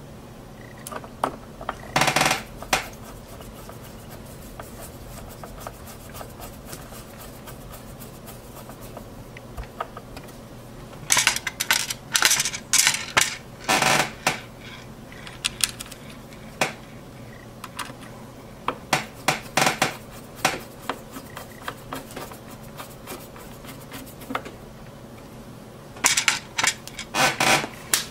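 Small metal screws and a screwdriver being handled, giving sharp little clicks and rattles in several separate bursts, with quieter stretches between.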